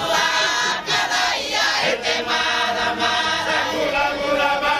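A group of Cook Islanders singing together in several-part harmony, many voices holding long notes.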